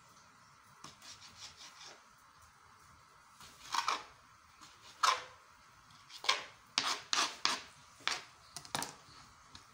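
Kitchen knife cutting tomatoes on a plastic chopping board: a few light quick strokes about a second in, then from about four seconds in a string of louder, separate cutting strokes, about one or two a second.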